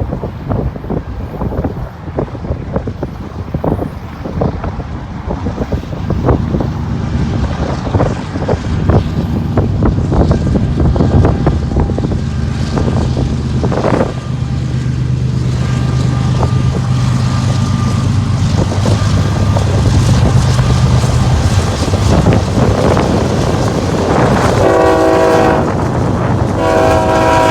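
Multi-note air horn sounding two short chord-like blasts near the end, over a steady low drone.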